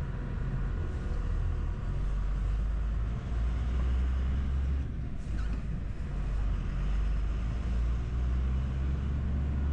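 Truck engine and road noise heard inside the cab while driving: a steady low drone.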